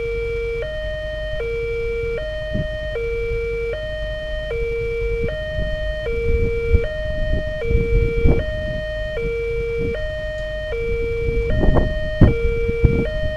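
Railway level-crossing warning alarm sounding a steady two-tone hi-lo pattern, switching pitch about every three-quarters of a second. It signals that the barrier is down and a train is due.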